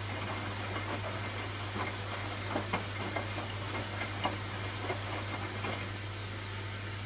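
Hoover washing machine running a wash: a steady low hum under a soft rushing noise, with scattered light clicks and knocks, mostly between about two and six seconds in.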